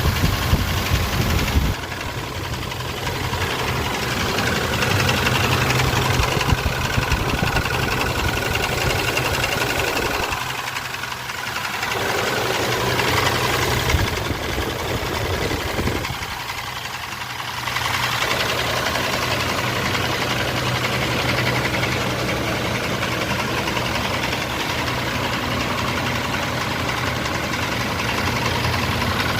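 Mitsubishi Pajero's 6G75 3.8-litre V6 running at idle with a knock in it, a sound the owner takes for rod knock. The engine drops a little fainter for a couple of seconds twice, about ten and sixteen seconds in.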